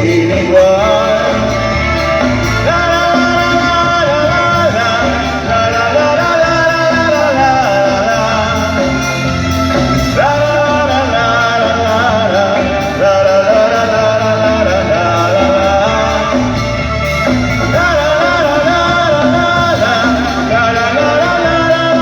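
Live band playing a Latin romantic song through the PA: a wavering lead melody over a steady repeating bass beat.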